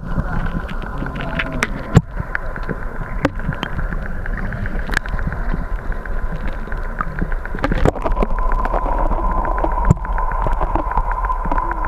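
Muffled underwater noise from a camera held below the water surface: a dense low rush with frequent small clicks and knocks as water and net move around the microphone. A thin steady tone grows stronger about eight seconds in.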